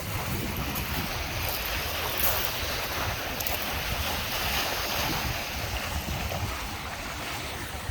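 Lake Michigan waves breaking and washing onto the beach in a steady rush, with wind buffeting the microphone in a low, gusting rumble underneath.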